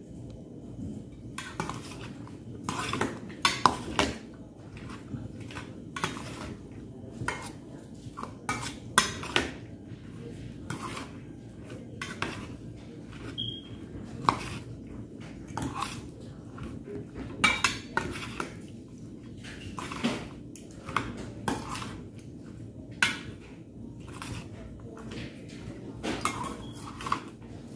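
Metal spoons clinking and scraping against the inside of a stainless steel pot while mixing kilawing tuna, in irregular strokes about one or two a second.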